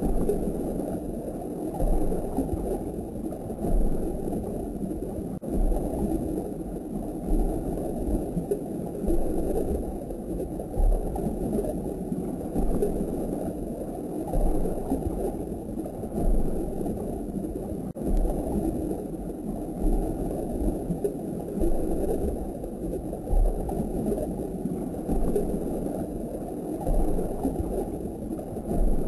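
Nano reef aquarium water circulation: a steady low gurgling rumble with soft low thumps every second or two.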